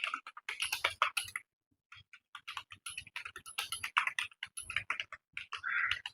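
Rapid keystrokes on a computer keyboard during a timed typing test, in dense runs of clicks with a short pause about one and a half seconds in.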